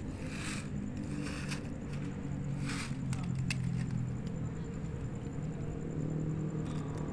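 A steady low engine hum, its pitch drifting slightly, with a few short faint clicks in the first half.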